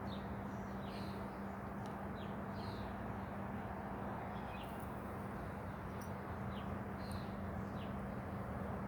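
Small birds chirping in short, high calls, repeated irregularly, over a steady low hum and outdoor background noise.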